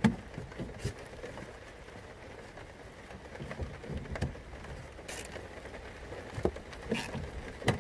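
Scattered clicks and light knocks of plastic and metal parts being handled as the engine's air intake tube is fitted back in place, about half a dozen separate sharp ticks over a low background hiss.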